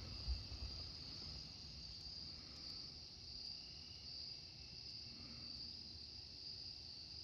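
Steady, high-pitched chorus of night insects such as crickets, with a faint low rumble beneath and one small knock about a third of a second in.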